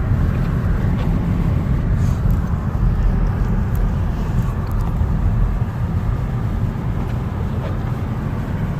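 Steady road noise heard from inside a moving car: a low drone of engine and tyres with an even hiss over it.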